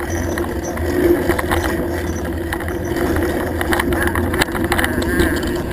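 Mountain bike riding over a dirt trail: a steady rumbling noise of tyres and riding, with scattered clicks and rattles from the bike over bumps.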